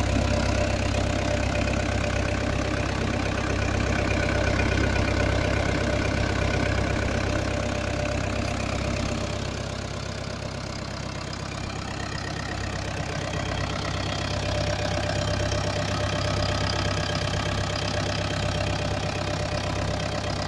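Komatsu PW110R wheeled excavator's diesel engine idling steadily, a little quieter around ten seconds in.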